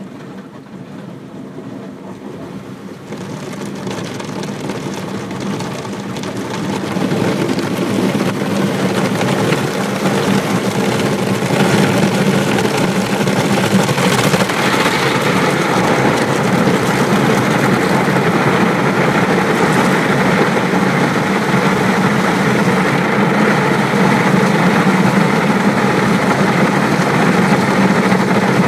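Automatic gantry car wash machine running, heard from inside the car: a loud, steady motor and fan hum that builds up over the first several seconds and then holds level.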